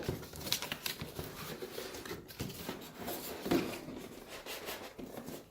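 Cardboard box and packaging being opened by hand: irregular rustling, scraping and light knocks.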